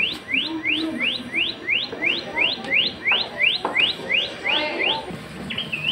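Recorded call of a rufous paradise flycatcher played from a museum exhibit speaker: a steady series of sharp, rising whistled notes, about three a second, that stops about five seconds in. Near the end a single, differently shaped note follows.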